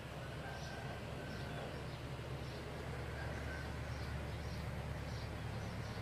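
Steady low background rumble with faint, short, high-pitched chirps recurring irregularly about once a second.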